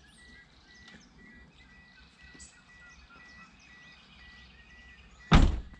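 Faint outdoor birdsong, with scattered chirps and a high, evenly pulsing call about three times a second. Near the end comes one sudden loud thump.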